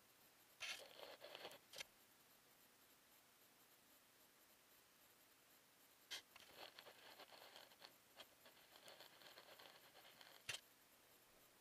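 Faint scraping and rubbing in two stretches, a short one about half a second in and a longer one from about six seconds, with a sharp click at the start of the second and another near the end. This is handling noise from a small action camera being slid and turned on the layout's surface.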